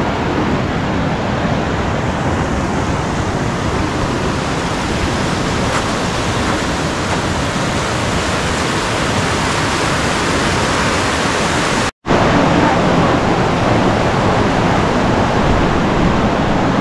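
Steady rushing of a fast-flowing mountain stream running past the old mill site. It cuts out for an instant about twelve seconds in and comes back slightly louder.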